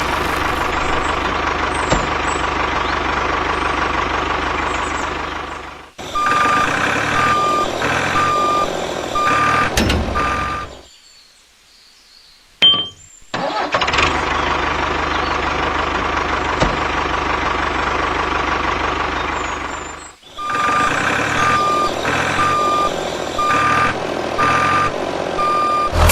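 Truck engine running steadily, then a reversing alarm beeping about once every 0.8 s over the engine. After a short pause the same engine-then-beeping sequence comes round again.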